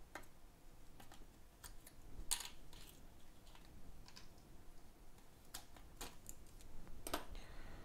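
Faint, scattered light clicks and taps of small parts and tools being handled on a workbench around an opened iPhone 7.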